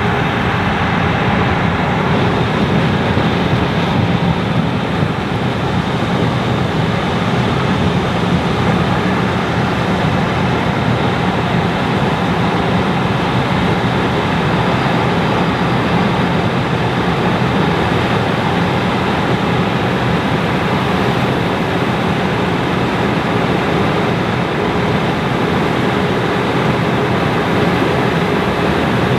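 Fendt Ideal 9T combine running steadily under load while harvesting corn with a 12-row Geringhoff corn head: an even, dense machinery noise with a steady hum that does not change.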